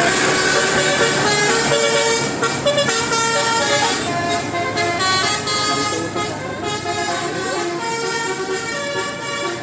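Bus telolet horn, a multi-tone musical air horn playing a tune of held notes that jump from pitch to pitch every fraction of a second.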